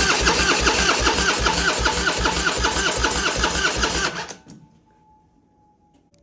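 Harley-Davidson Twin Cam 88 V-twin with a Bassani exhaust, just fired on choke, running with an even loping beat; it cuts out about four seconds in. It runs with a slight knock, which the owner puts down to a rear-cylinder pushrod out of adjustment.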